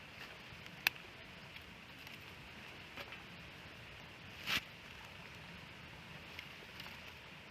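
Wood campfire burning, a faint steady hiss broken by sharp pops of burning wood about a second in and again around three seconds, and a louder, longer crackle a little past the middle.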